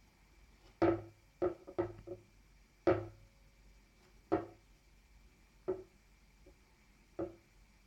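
Fingertip taps on a smartphone's touchscreen: about eight sharp, irregularly spaced knocks, each ringing briefly, the loudest in the first three seconds.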